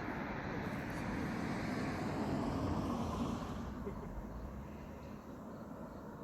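A car's engine and tyre noise on the road, growing louder to a peak about three seconds in and then fading away.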